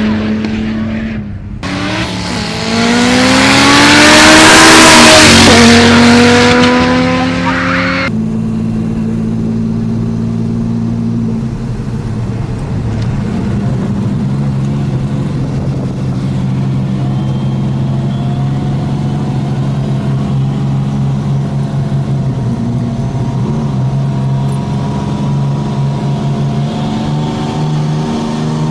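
A car engine revving hard, loud and rising in pitch for several seconds. After an abrupt change it gives way to a steady engine hum that holds a nearly constant pitch.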